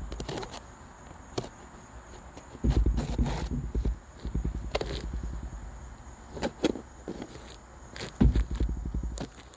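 Handling of a shipping box and its packaging: scattered knocks, clicks and rustles, with two stretches of low rumbling handling noise on the microphone.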